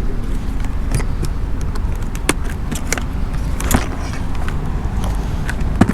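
A tent being set up by hand: scattered light clicks and rattles of its poles and fittings, over a steady low rumble.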